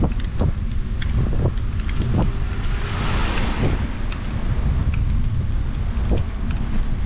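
Wind buffeting the microphone while riding a bicycle, a steady low rumble, with scattered clicks and rattles. A hiss swells and fades about three seconds in.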